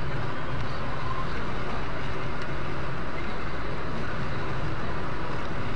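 Steady engine and tyre noise of a moving car, heard from inside the cabin through a dash camera's microphone.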